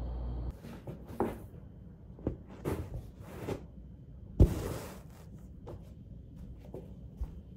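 A steady low hum cuts off about half a second in. Then come scattered short knocks, clicks and rustles of things being handled, with one sharp thump about four and a half seconds in.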